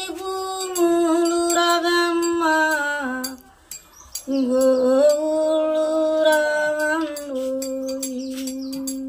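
A woman singing a slow song solo, holding long notes that step between pitches, with no instruments. She breaks off about three seconds in and starts again a second later, with faint clicks alongside.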